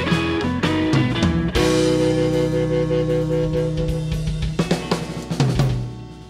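Live blues band playing its closing flourish: drums rolling and hitting accents under a long held guitar chord, then a few final hits as the sound dies away.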